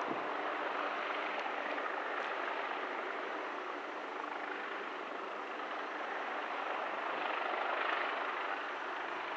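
Steady distant mechanical noise: an even hiss with a faint low hum in the first few seconds and no distinct events.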